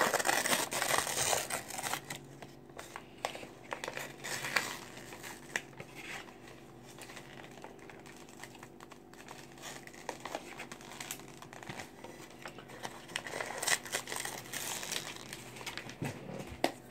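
Paper bag inside a box of Argo laundry starch being handled and opened, crinkling and rustling in irregular crackles, busiest in the first couple of seconds and again near the end.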